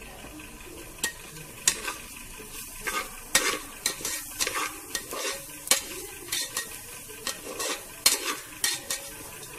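Metal slotted spoon scraping and knocking irregularly against the sides of an aluminium pressure cooker as rice is stirred, starting about a second in. Under it is a light, steady sizzle of the rice frying in ghee.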